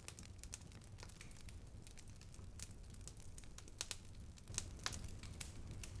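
Faint wood fire crackling in a wood-burning stove, with scattered small snaps and clicks over a low rumble.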